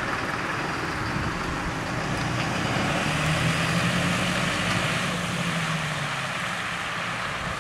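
Chevrolet car driving on a wet road, heard from inside the cabin: steady tyre and road noise with engine hum. A low steady drone comes in about two and a half seconds in and fades out about six seconds in.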